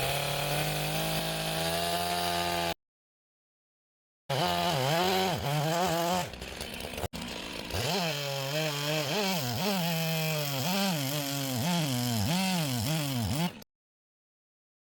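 Gas chainsaw cutting through oak rounds to quarter them. It runs at high revs and its pitch dips and recovers again and again as the chain bites into the wood. The sound drops out completely twice for a second or more.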